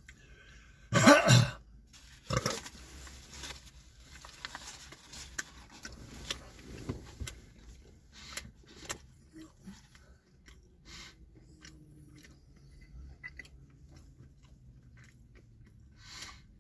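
Chewing on a chicken sandwich, with scattered small clicks and crinkles from its foil-lined wrapper. A short loud throat sound about a second in, and a smaller one just after two seconds.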